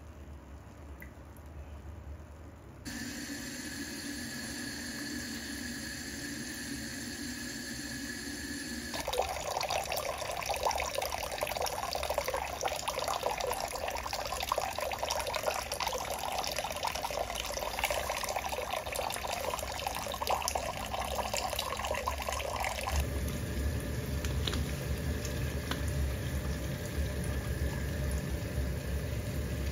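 Kitchen faucet running into a stainless steel sink, a thin trickle at first and later a full stream splashing into the filling basin. The water sound changes abruptly about three seconds in, again near nine seconds and again after twenty seconds, growing louder and deeper.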